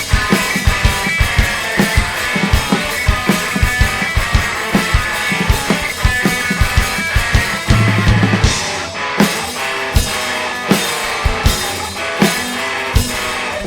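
Live rock band playing an instrumental passage: a drum kit beating steadily under guitar.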